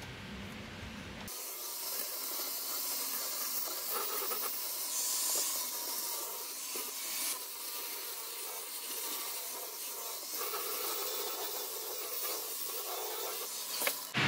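Handheld electric die grinder with a small abrasive drum sanding a fibreglass fillet, a steady hissing rasp that wavers as the drum is worked along the surface. It starts abruptly about a second in.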